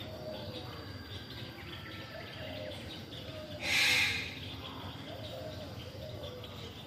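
Palm cockatoo giving one loud, harsh screech lasting about half a second, a little past halfway, over faint background chirps.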